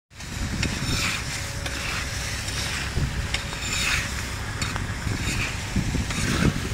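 Footsteps crunching on snowy, sawdust-covered stairs, about one a second, over a steady low rumble of wind on the microphone and an approaching DR1 diesel train.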